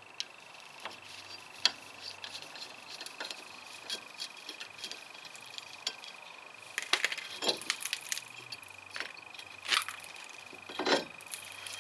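Scattered sharp clicks, clinks and knocks of tools and metal brake parts being handled during removal of a car's front brake disc, with a few louder clatters in the second half. A faint steady high tone runs underneath.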